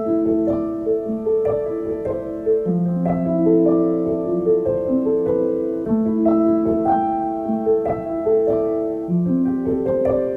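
Background piano music: a slow melody of struck notes over held chords.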